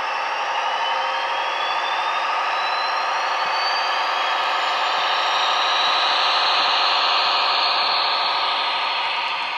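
Sound-decoder diesel engine sound of a DB class 218 model locomotive, played by an ESU LokSound 5 through a small bass-enhanced speaker, under way with a whine rising in pitch over the first few seconds, mixed with the rolling noise of the model train on the track. It grows louder to a peak about six to seven seconds in as the wagons pass close.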